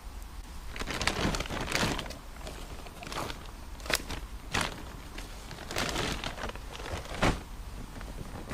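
Wood and coals being handled and stacked on a campfire by hand: irregular crunching and rustling in several clumps, with a few sharp knocks of wood on wood.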